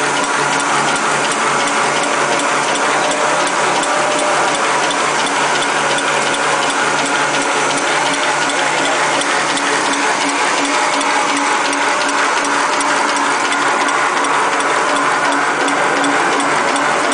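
Napkin paper making machine running steadily, a dense rapid mechanical clatter over a constant hum.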